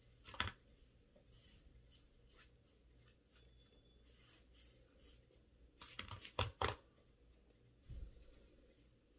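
Faint handling sounds of a foam brush being worked up and down a board, with a few sharp short taps: one about half a second in, a quick cluster around six seconds in, and a duller knock near the end.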